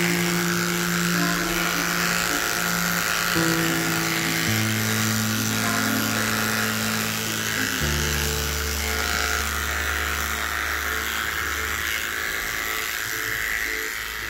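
Electric dog clippers buzzing steadily as they shave through a heavily matted coat, under background music of long held low notes that change every few seconds.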